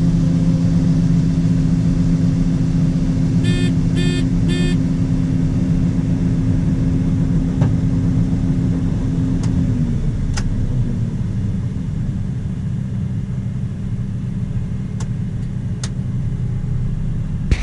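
A 1998 John Deere 9510 combine running steadily while harvesting soybeans, a constant low engine drone. About three and a half seconds in come three short electronic beeps. About ten seconds in, a higher steady tone in the drone drops away.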